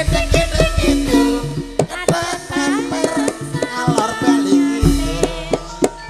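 Javanese gamelan music accompanying a tayub dance: hand-drum strokes over held metallophone tones, with a singer's voice sliding between notes.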